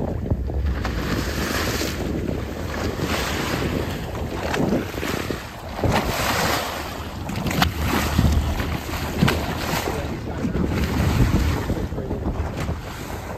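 Wind buffeting the microphone on an open fishing boat, with water washing against the hull and a few short knocks.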